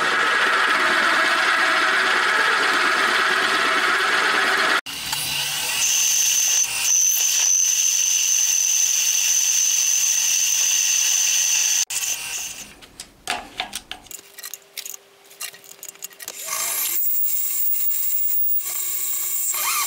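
Milling machine spindle running as the tool cuts a hole in a metal plate, bored slightly undersize for a shrink fit. The sound comes in several edited stretches: loud cutting noise at first, then a steady high whine, then quieter running with scattered clicks near the end.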